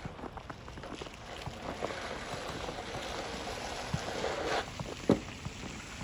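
Vehicle tyres hissing through wet slush as it passes, building for a few seconds and cutting off sharply a little after four seconds in. A single sharp knock follows about a second later.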